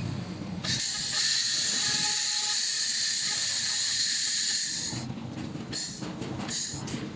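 Handheld laser welding machine firing: a steady hiss starts about half a second in and cuts off about five seconds in, over lower machine noise that carries on either side.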